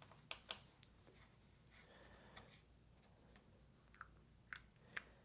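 Near silence with a handful of faint, sharp clicks and light taps, as of small parts or tools being handled: two close together just after the start, one midway, and three more near the end.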